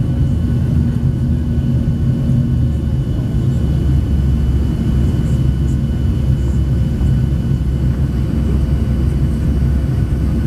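Boeing 737-700's CFM56-7B turbofan engines heard from inside the cabin during the climb after takeoff: a steady low rumble with a few thin, steady whining tones above it.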